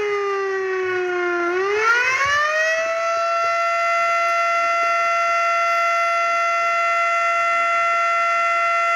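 Outdoor tornado warning siren wailing. Its pitch sags low, then about a second and a half in climbs back up over a second or so and holds one steady high tone.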